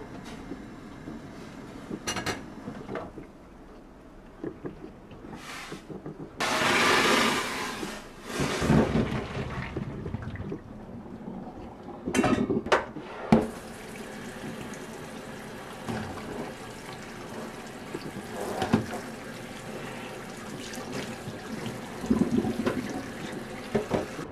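Kitchen sink sounds: a metal mesh strainer clinks against a stainless steel pot and colander as blanched cherry tomatoes are moved, with a loud rush of splashing water about six seconds in. From about halfway on, a cold tap runs steadily over the tomatoes in a metal colander in a stainless sink, rinsing them.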